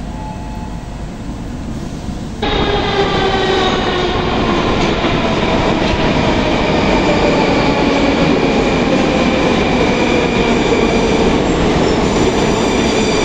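Metro station hall noise for about two seconds, then a sudden change to a metro train running alongside the platform, loud. Its whine of several tones slowly falls in pitch as the train slows while pulling in.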